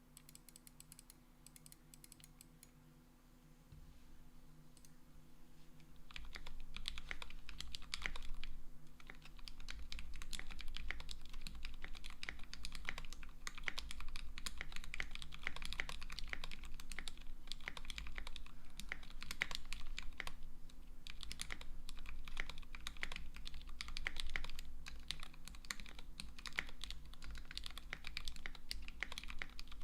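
Typing on a KBDFans D65 mechanical keyboard with a brass plate and lubed Gateron Black Ink V2 linear switches, built without the foam between PCB and case. A few faint keystrokes come first, then steady fast typing starts about six seconds in and runs on with only brief pauses.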